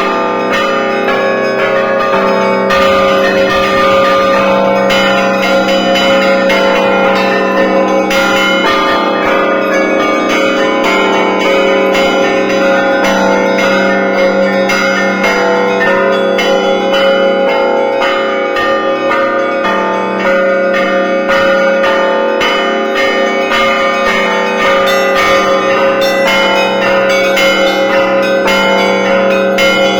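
Russian Orthodox church bells rung in a continuous festive peal (zvon). Rapid strikes of the smaller bells ring over the steady, sustained tones of the larger bells.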